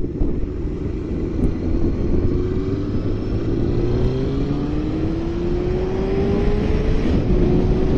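Honda Fireblade 900's inline-four engine pulling hard under acceleration, its note rising in pitch several times with a drop between each rise as it shifts up through the gears, over wind and road noise. The rider is working the revs to bring the engine up to operating temperature.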